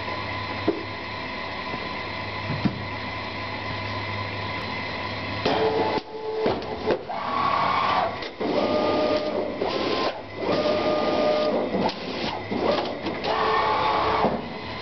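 Automatic box-opening machine running: a steady machine hum, then from about five seconds in a series of louder mechanical runs, each about a second long with a steady whine, as its drives move the cutting head over a cardboard box.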